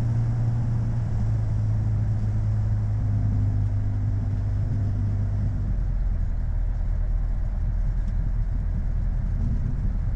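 Piper PA-28's piston engine and propeller running steadily at taxi power, heard from inside the cabin. About six seconds in the note changes and deepens.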